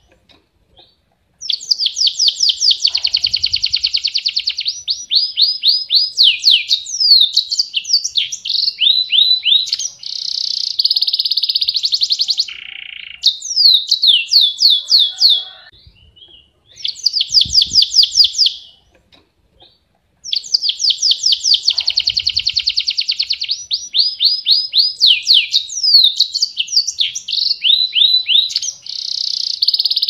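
Domestic canary (Serinus canaria) singing a long rolling song: fast trills of rapidly repeated high notes that run into rising and falling sweeps. The song is broken by short pauses near the start and twice about two-thirds of the way through.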